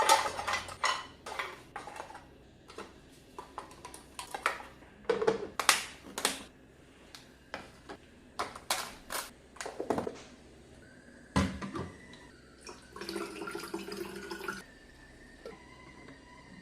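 Dishes, pans and utensils clinking and knocking as they are handled, a long string of separate sharp clatters. Near the end comes a short stretch of steady rushing that fits a running tap.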